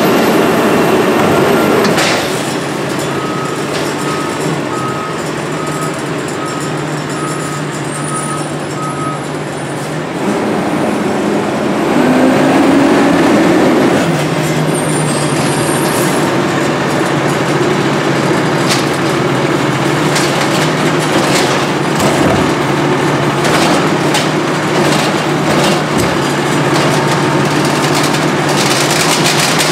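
Diesel engine of a Condor Amrep HX-450 automated side-loader garbage truck running, revving up about twelve seconds in as the truck pulls forward, then running steadily while the lift arm reaches out for the next cart. A few seconds in, a beeper sounds repeatedly, about once a second, for around six seconds, and there are scattered clanks in the later part.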